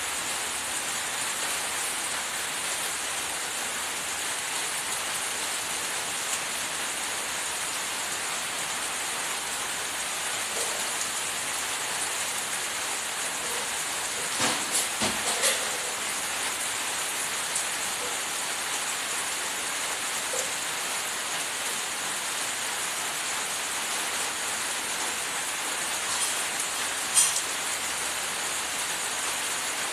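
Steady rain-like hiss, with a short cluster of light knocks about halfway through and one sharper knock near the end.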